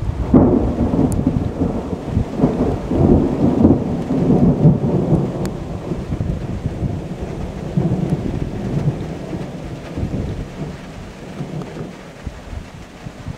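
Long rolling thunder rumble from a thunderstorm, loudest in the first half and slowly fading away near the end, with a steady hiss of rain under it.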